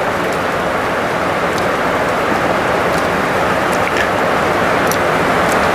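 Heavy rain falling steadily, a loud even hiss that grows slightly louder toward the end.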